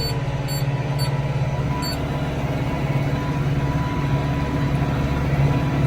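Tractor engine running steadily with a net-wrap round baler working behind it, making what the operator calls funny noises.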